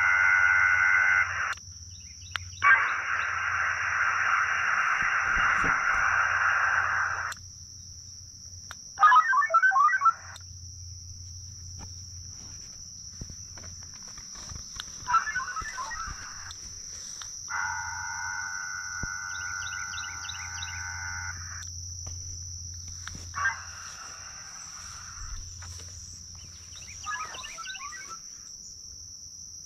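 HF digital modem signals from a Winlink email session on a Xiegu X6100, heard through the radio's speaker. Blocks of data tones start and stop every few seconds: some are a steady chord of three or four tones, some a hissy band, some short dotted bursts, and the first seven seconds are the loudest. A steady high-pitched insect drone runs underneath.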